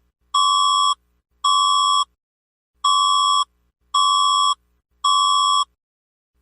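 Electronic alert tone of a mock emergency alert: a steady high-pitched beep of about half a second, repeated in sets of three about a second apart with a longer pause between sets.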